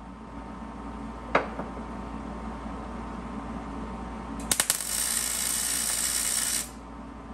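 Wire-feed MIG welder arc on a steel car frame rail: a single sharp crack about a second in, then a few sputtering pops and about two seconds of steady crackle that cuts off abruptly.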